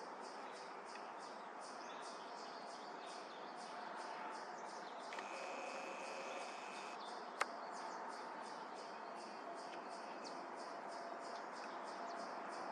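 Outdoor background with a steady run of faint high ticks, about three or four a second. A short steady high tone lasts under two seconds around the middle, and a single sharp click comes just after it.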